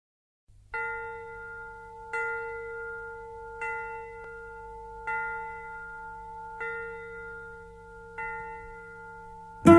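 Solo flamenco guitar opening a rondeña: the same bell-like chord is plucked six times, about every second and a half, each ringing on until the next. A louder, fuller chord comes in at the very end.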